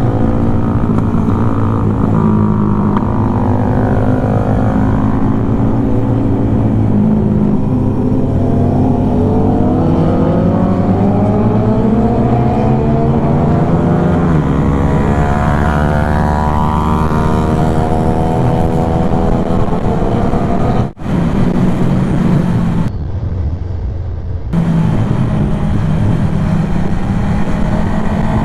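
Motorcycle engine under hard riding, its pitch climbing with each burst of acceleration and dropping back at the shifts and roll-offs, over and over. The sound cuts out for an instant about three quarters of the way through.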